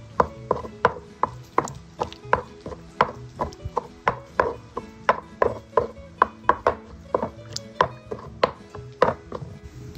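Stone pestle pounding tomatoes and chiles into a watery salsa in a volcanic-stone molcajete: steady knocks of the pestle in the bowl, about three a second.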